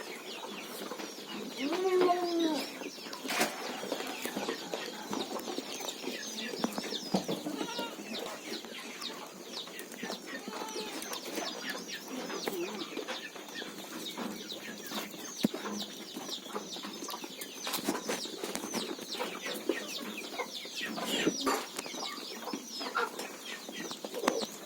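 Poultry clucking, with many short chirps throughout and one longer call about two seconds in.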